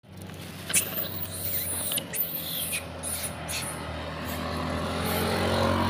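A troop of long-tailed macaques gives several short, sharp, high squeaks and scuffs, mostly in the first three seconds. A steady low engine hum runs underneath and grows a little louder toward the end.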